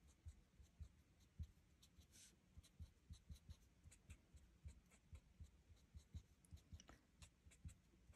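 Faint, quick scratching and tapping of a Stampin' Blends alcohol marker's fine nib tip on cardstock, in short irregular strokes while colouring small flower centres.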